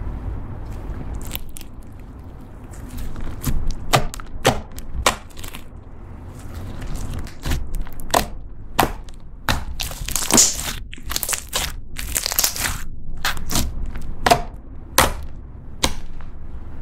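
Thick pink slime, clear slime loaded with mixed-in ingredients, being poked, pressed and kneaded by hand: a string of sharp pops and crackles, thickest about two-thirds of the way through.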